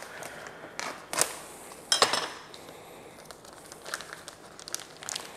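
Plastic vacuum-sealed meat packaging being handled: scattered crinkles and small clicks, with a sharper clink about two seconds in.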